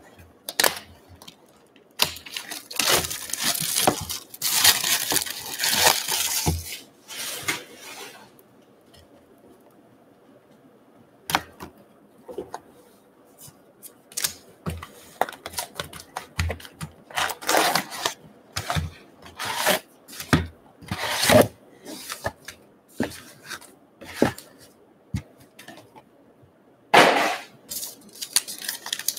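A cardboard box of 2019 Topps Gypsy Queen baseball card packs being torn open and emptied, with bursts of tearing and rustling. Then come scattered light taps and crinkles as the paper packs are set down on a wooden table, and a pack wrapper is ripped open near the end.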